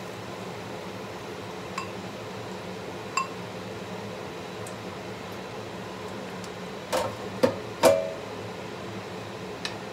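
Ceramic bowl and wooden spatula knocking against a frying pan: two light clinks early, then three sharp, ringing knocks about seven to eight seconds in, over a steady low hum.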